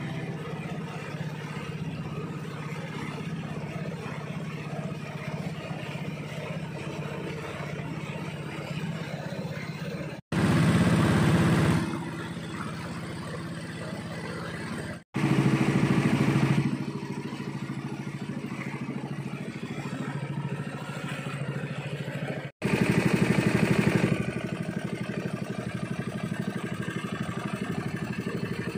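Small fishing boat's motor running steadily while the boat is under way, with water rushing along the hull. The sound cuts out abruptly three times and each time comes back louder for a second or two.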